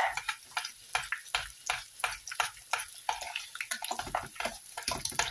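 Thick mashed potato being stirred in a metal saucepan: irregular wet slaps, squelches and scrapes of the utensil through the purée against the pan, several a second.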